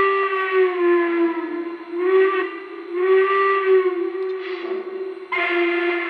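Steam whistle from the sound system of a Lionel O-gauge Greenbrier model steam locomotive, sounded in a series of blasts: a long blast that sags in pitch as it trails off, a short one, another long one, and a fresh blast starting near the end.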